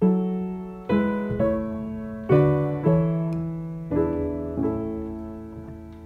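Piano playing a slow, gentle phrase: about seven notes or chords struck at uneven intervals, each left to ring and die away, with the sound fading toward the end.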